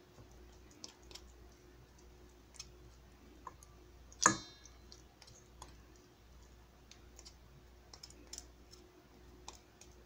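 A small knife clicking and scraping against a stainless steel bowl while trimming raw chicken drumettes, cutting the tendons around the bone. About four seconds in the blade strikes the bowl in one sharp metallic clink that rings briefly.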